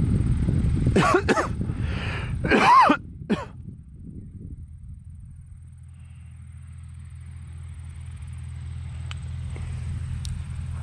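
A person clearing their throat and coughing, in two short bouts, over low rumbling noise. From about three and a half seconds in, a steady low hum takes over and slowly grows louder.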